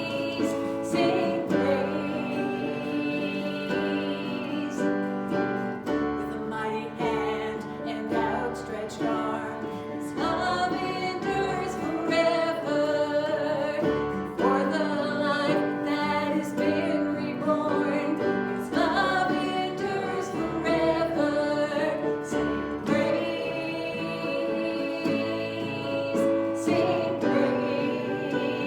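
Worship music in a church service: singing with instrumental accompaniment, long held notes over changing chords.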